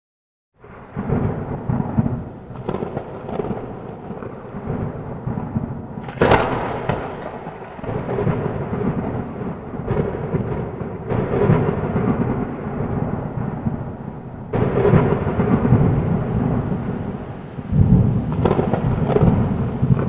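Thunderstorm sound effect: thunder rumbling continuously, with a sharp thunder crack about six seconds in and heavier rolls near the end.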